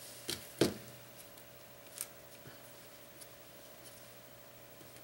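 Small sharp clicks and taps of fingers handling an opened Nexus 4 phone's plastic frame while pressing its new battery into place. Two come close together near the start, the second the loudest, and another about two seconds in.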